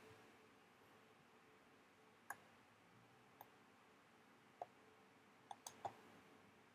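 About six faint, irregular clicks of a computer pointer being clicked, over near-silent room tone. Three of them come close together near the end.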